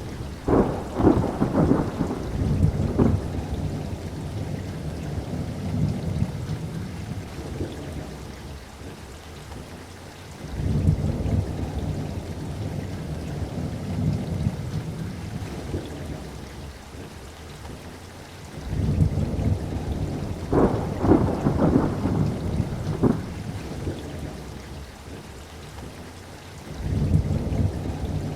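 Steady rain with repeated thunder: sharp crackling claps near the start and again about two-thirds of the way through, and low rolling rumbles swelling in about ten, nineteen and twenty-seven seconds in.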